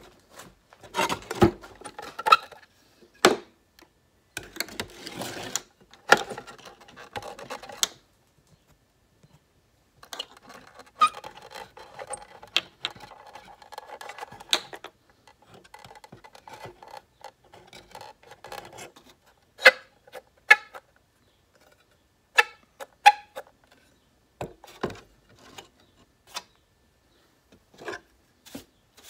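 Hand-work on a strobe power supply's case, likely as it is opened: irregular scraping and rubbing with sharp clicks and knocks, broken by short pauses.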